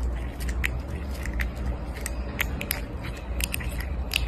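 A grey tabby cat gnawing and licking at a person's wrist: irregular small wet clicks and smacks of its teeth and tongue.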